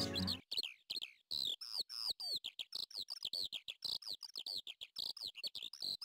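Saker falcon calling in a rapid series of short, shrill notes, about four or five a second. Background music fades out just before the calls begin.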